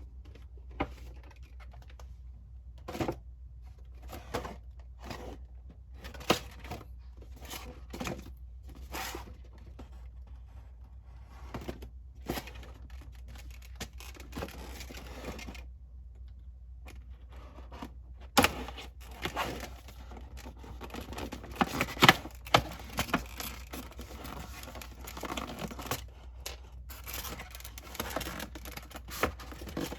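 Hands unboxing a die-cast model car's box and packaging. Scattered clicks and taps come first, then from about two-thirds of the way in there is steadier rustling and tearing with louder knocks.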